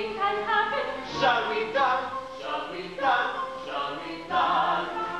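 Show-tune singing with musical accompaniment, the voice moving in short phrases about a second long.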